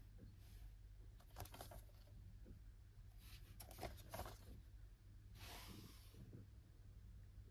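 Faint handling noise of a DVD case in its slipcover: soft clicks and rustles in two short clusters, then a brief scraping slide near the end, over a low steady hum.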